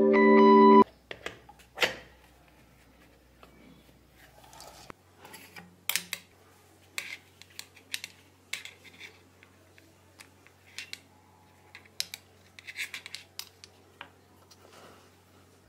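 A music chord that cuts off abruptly under a second in, then scattered sharp clicks and light knocks of plastic parts being handled: a mains power adaptor plugged into a wall socket and its DC barrel plug fitted to a small circuit board.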